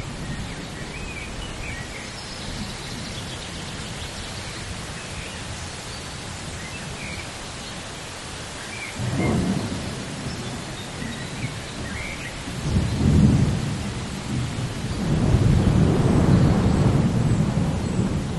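Steady rain with rolling thunder: a short rumble about halfway through, another a few seconds later, and a longer, louder rumble near the end.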